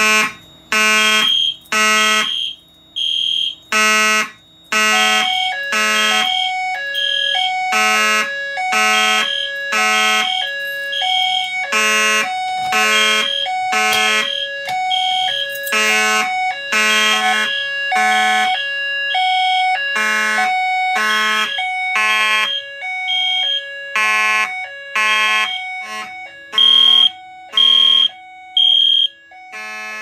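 Fire alarm horns, a Simplex mechanical horn and an Edwards (EST) Genesis horn-strobe, sounding together in alarm after a Simplex pull station is pulled. They beep in overlapping pulsed patterns, each beep about half a second long with short gaps between groups, and one horn has a high pitch.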